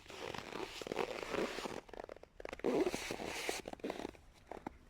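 Footsteps creaking and crunching on cold, dry snow in a hard frost, in two spells of steps.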